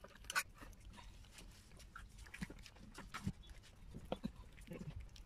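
A cat eating wet food from a saucer: faint, irregular clicks and smacks of chewing and lapping, with one sharper click about half a second in.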